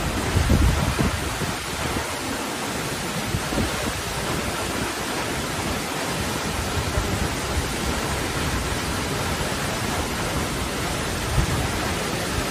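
Steady roar of a tall waterfall crashing down a cliff face, an even rushing hiss, with brief low surges about half a second in and again near the end.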